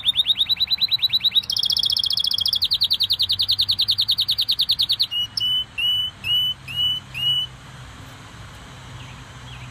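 Gloster canary singing: fast, rapid trills that shift pitch twice, then about five slower, separate upswept notes before the song stops about three-quarters of the way through.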